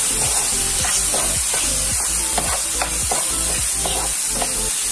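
Spatula scraping and stirring diced vegetables in sauce around a non-stick frying pan, about two or three strokes a second, over the sizzle of the vegetables frying.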